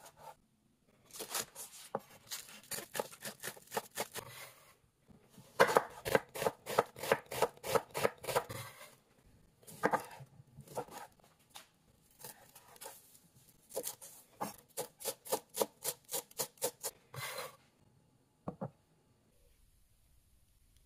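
Chef's knife chopping green onions and limes on a wooden cutting board, in several runs of quick, sharp strokes of the blade against the board, the fastest about four a second. The chopping stops near the end.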